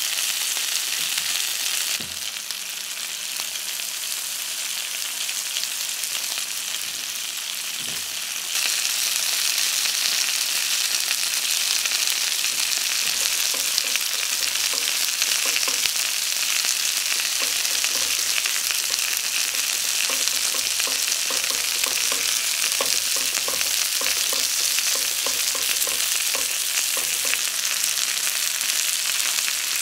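Chicken strips and chopped garlic frying in a pan, then butter melting and foaming around them: a steady sizzle with a couple of soft knocks early on. The sizzle gets louder about eight seconds in, and light spitting and crackling come in later.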